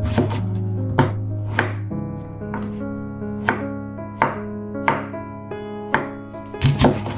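Chef's knife slicing Korean zucchini on a wooden cutting board: about ten sharp knocks of the blade striking the board, roughly one every second, with a quick pair near the end. Background music plays underneath.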